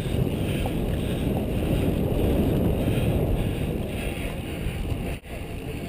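Wind rushing over the microphone of a camera on a road bicycle riding at speed: a steady low rumble. It drops out for a moment about five seconds in.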